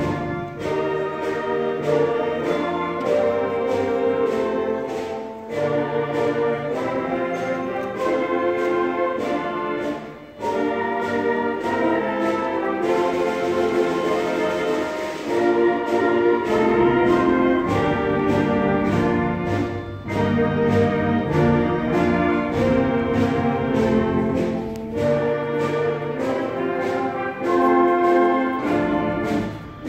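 Orchestral music with prominent brass, sustained chords in slow phrases with short breaks about every five seconds.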